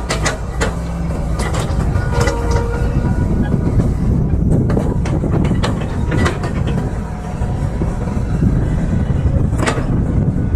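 Excavator working: a steady, heavy low engine rumble with irregular sharp metallic clanks and knocks from the machine.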